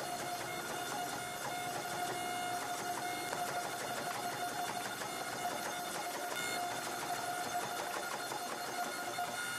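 Hydraulic forging press running with a steady whine from its pump motor while its dies squeeze and draw out a hot damascus billet.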